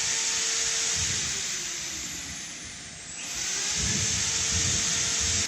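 A loud, steady hiss. It eases off about three seconds in, builds back up, then cuts off abruptly.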